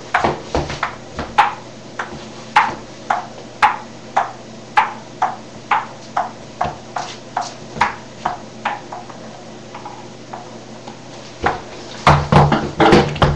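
Table tennis ball bouncing: light, sharp taps about two a second, not quite evenly spaced. Near the end comes a quick flurry of louder knocks.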